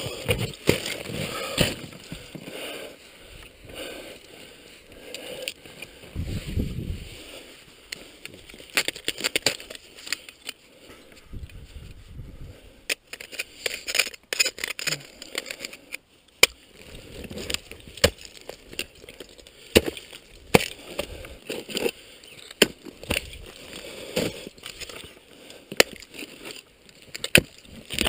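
Ice axes and crampons striking and biting into waterfall ice, a string of irregular sharp hits with scraping and crunching between them.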